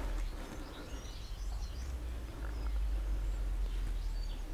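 Outdoor ambience: a steady low rumble, typical of wind on the microphone, with faint short bird chirps.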